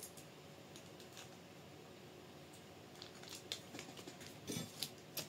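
Faint handling of small RC kit parts and their bags: a few light clicks and rustles, bunched in the second half.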